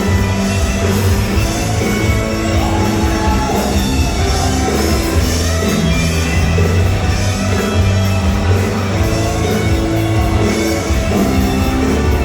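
Background rock music with electric guitar and drums, loud and steady.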